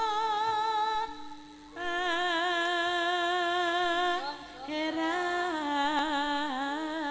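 A female sinden singing Javanese gamelan vocal lines in long, held notes. One phrase ends about a second in, and after a short pause a new held phrase begins. From about five seconds a more ornamented phrase follows, its pitch wavering and bending.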